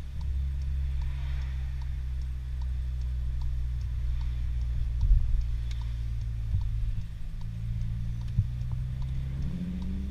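2019 Volkswagen Jetta GLI's turbocharged 2.0-litre four-cylinder with a new aftermarket exhaust, heard inside the cabin: a steady low drone while driving slowly in second gear, rising a little in pitch near the end. A faint regular ticking runs over it.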